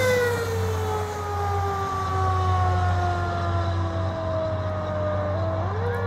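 Fire engine siren wailing, its pitch falling slowly and then climbing again near the end, over the steady low rumble of the truck's engine.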